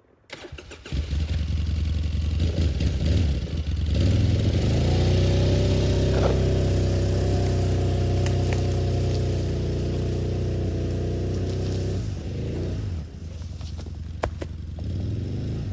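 Old quad (ATV) engine starting up, then revving and running hard under steady load for several seconds while dragging a choked log, before dropping back to a lower, quieter run about three seconds before the end.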